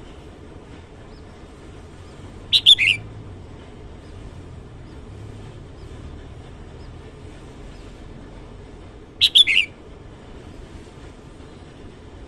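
Red-whiskered bulbul singing two short, loud phrases, each under a second long: one about two and a half seconds in, the other about nine seconds in.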